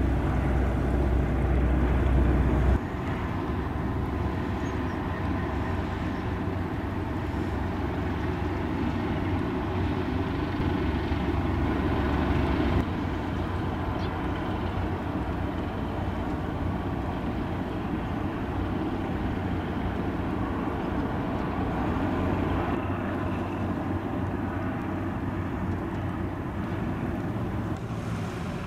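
Steady low rumble of the tugboats' engines and the shipyard across the water, with some wind on the microphone. The sound drops abruptly in level about three seconds in and again around thirteen seconds.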